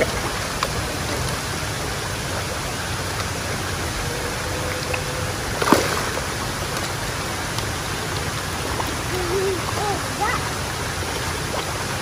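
Steady rushing of flowing water in a koi pond, with one sharp click about halfway through.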